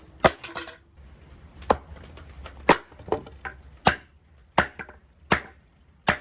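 Wood being struck hard, about eight sharp knocks at an uneven pace of roughly one a second, like a board being hacked or chopped.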